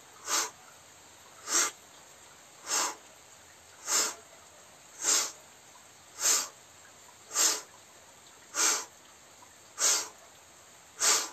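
Ten short, forceful exhalations, evenly spaced a little over a second apart, one with each repeat of a yoga movement.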